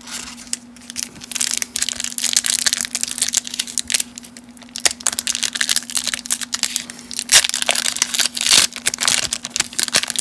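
Foil wax-pack wrapper of a 1991 Studio baseball card pack crinkling and tearing as it is ripped open by hand, a dense irregular crackle.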